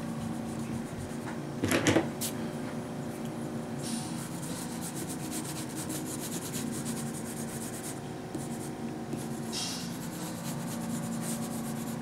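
Graphite pencil shading on sketchbook paper: soft, scratchy rubbing strokes over a steady low hum. A brief louder sound comes about two seconds in.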